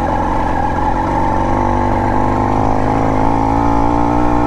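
BT100 two-stroke motorized-bicycle engine running steadily under load as the bike rides along, its pitch edging up slightly in the second half.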